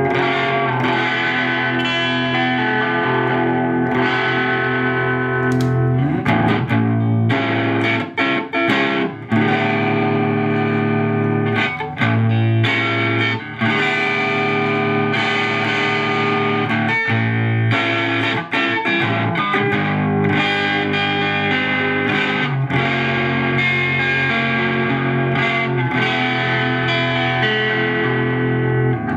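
Electric guitar playing overdriven chords through a Tube Screamer TS-9-style overdrive pedal into a vacuum-tube amplifier, the chords held for a few seconds each with short breaks between some of them. The pedal's output is turned up high, driving the amp's clean channel into its own overdrive.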